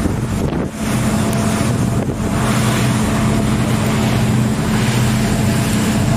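Excursion boat's engine running with a steady low hum, under wind noise buffeting the microphone on the open deck.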